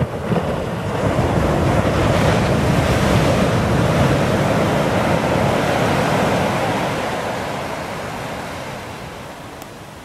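Ocean waves breaking and washing up a sandy beach: the surf swells suddenly, stays loud for several seconds, then fades as the wash recedes. Wind rumbles on the microphone under it.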